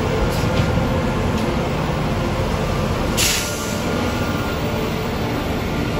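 Caterpillar 349F hydraulic excavator's diesel engine running steadily under load while digging, with one short hiss of released air about three seconds in.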